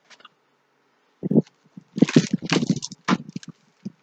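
Handling sounds of a clear plastic tube holding a rolled canvas as it is picked up and moved: short rustles and knocks, thickest in the second half, mixed with some low spoken sounds.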